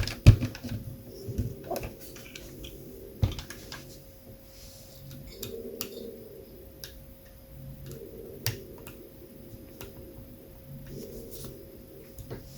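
Scattered small clicks and taps of hard plastic RC parts being handled and pressed together as a 3D-printed brake caliper is fitted onto a 1:10-scale car's hub, with a few sharper knocks near the start and about three seconds in.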